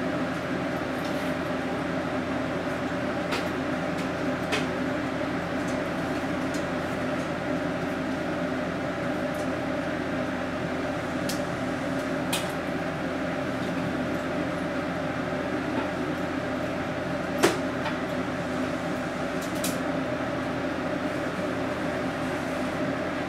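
Steady interior hum inside an HB-E300 series diesel-hybrid railcar, with several steady droning tones from its machinery and ventilation. A few faint clicks and knocks sound from the car, the sharpest about two-thirds of the way in.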